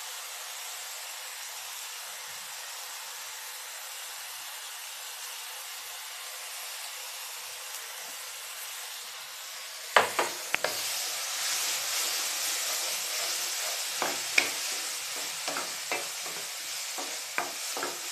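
Onion-tomato masala sizzling steadily in a hot nonstick pan. About ten seconds in, a wooden spatula starts stirring the freshly added tomato puree into it: the sizzling grows louder and the spatula knocks and scrapes against the pan several times.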